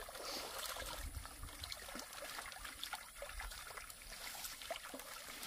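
Faint trickling water with a few small scattered clicks.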